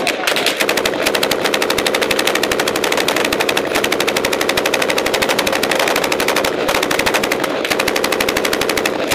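Belt-fed machine gun firing long sustained bursts: rapid, evenly spaced shots with only a few split-second breaks.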